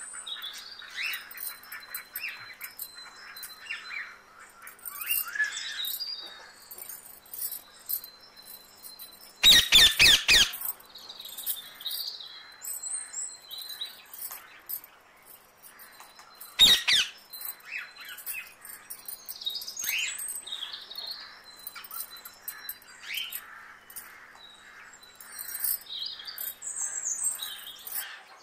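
Birds chirping, with many short high calls throughout and a thin steady high tone coming and going. Loud sharp knocks break in twice: a quick cluster of several about a third of the way in, and a single one a little past halfway.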